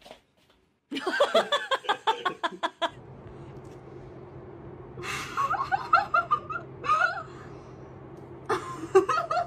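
A person laughing: a quick run of short laughing bursts, then after a pause more bursts of giggling over a steady low hum.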